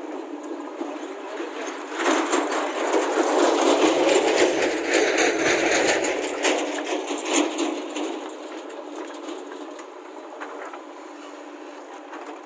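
JCB 3DX backhoe loader at work. From about two seconds in comes a loud rushing rattle of soil and clods pouring out of its raised backhoe bucket, fading away over the following several seconds, with the machine running steadily under it.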